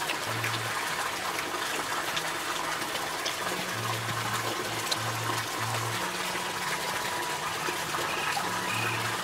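A steady rush of running water, with short, low notes of background music coming and going.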